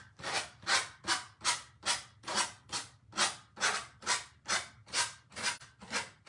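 Sanding block rasping back and forth along the paper-covered edge of a metal cloud, in a steady rhythm of about two and a half strokes a second.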